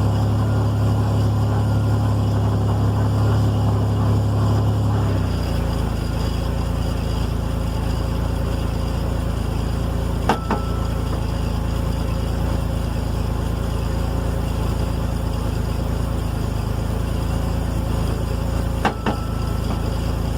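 2002 Toyota Tacoma running in first gear with its rear wheels spinning in the air, its drivetrain humming steadily. The hum's note changes about five seconds in. Two sharp metallic clunks from the rear driveline, about eight and a half seconds apart, each with a brief ring, heard with the brake pedal pressed just after a new driveshaft support bearing was fitted; the cause is unknown.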